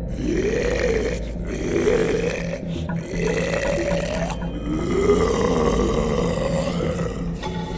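Spirit Halloween caged-zombie animatronic's recorded monster growls: four long, rasping growls, each rising and falling in pitch, the last the longest. The sound is doglike.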